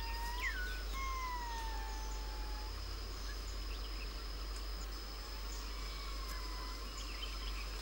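Ring-tailed lemurs giving long, drawn-out calls that glide slowly down in pitch, several in the first few seconds and a fainter one past the middle, over a steady high-pitched drone.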